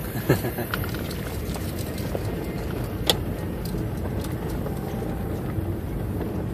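Car driving slowly on a gravel road, heard from inside the cabin: a steady low rumble of tyres and engine with scattered clicks from the gravel. There is a knock just after the start and a sharp tick about three seconds in.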